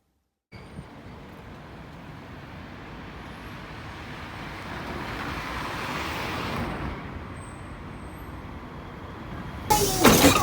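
Steady vehicle rumble that swells over the first few seconds and then holds, with a sudden loud burst near the end.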